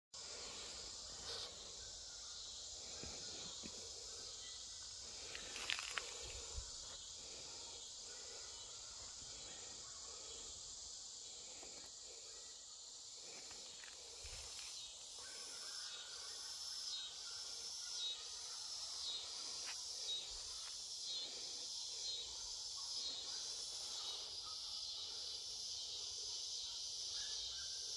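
Summer insect chorus: a steady, high, even buzz. About halfway in, a rhythmic pulsing call joins it, repeating about once a second, with a few faint handling clicks near the start.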